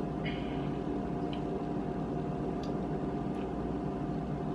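Steady kitchen room tone with a low hum, broken by a few faint short clicks.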